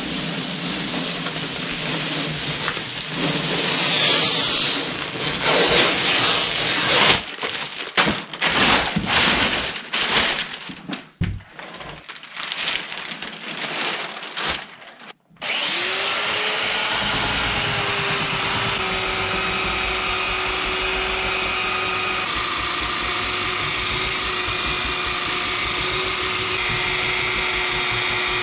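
Irregular rustling and scraping as the cured epoxy-edged plank is handled on plastic sheeting, then, from about halfway through, an electric belt sander starting up, its pitch rising briefly before it settles into a steady whine as it sands the charred wood surface.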